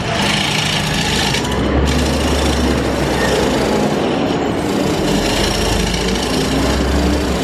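Wood lathe running with a steady low motor hum while a turning tool scrapes continuously against the spinning American sweetgum bowl, shaping its curve.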